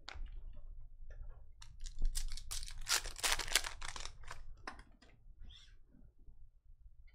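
Foil trading-card pack wrapper being torn open and crinkled: a dense run of crackling and tearing for a few seconds, thinning out toward the end as the cards come out of the pack.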